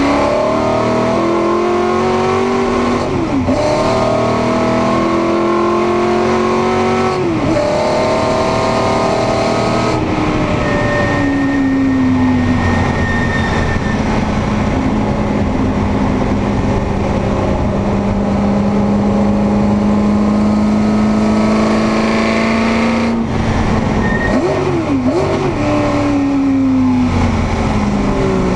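Ford GT40's V8 engine heard from inside the cabin, accelerating hard through the gears with two upshifts in the first several seconds. The revs then ease off and hold steady for a long stretch, and near the end there are a couple of quick dips in pitch before the revs fall away.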